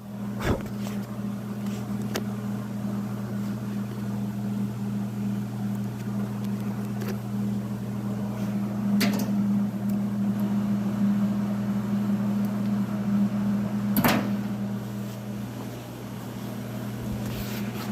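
Steady low machine hum with a few sharp clicks scattered through it, the loudest about fourteen seconds in.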